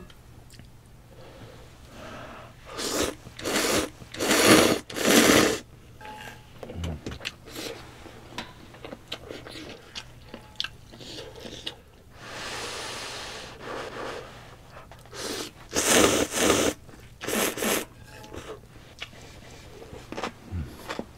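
Close-miked slurping of spicy instant ramen noodles in short loud bursts, a cluster of four about three to five seconds in and another cluster about sixteen to eighteen seconds in, with a longer, softer slurp in the middle and wet chewing between.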